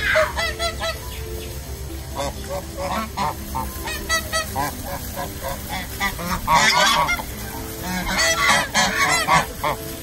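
Domestic geese calling: many short honks in quick, overlapping runs, busiest about two-thirds of the way in and again near the end.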